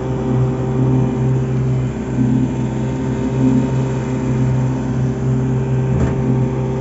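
Outboard motor on a small steel boat running at a steady speed: a constant, even drone that holds the same pitch throughout.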